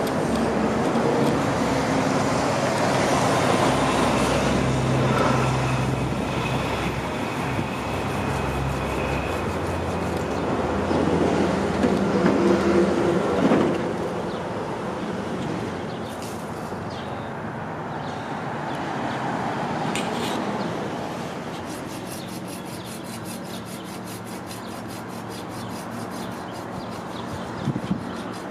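Street traffic: a motor vehicle running close by through the first half, easing off about halfway in into a quieter, steady traffic hum.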